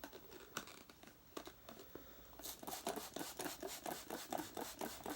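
Hands working on plastic vacuum cleaner parts: scattered clicks and rustling, then about two and a half seconds in a quick run of scraping and rubbing strokes, several a second.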